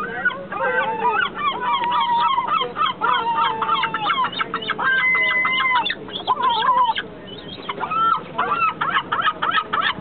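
Gulls calling: a long run of short, high, pitched cries, with a longer held call about five seconds in and a quicker string of short calls near the end.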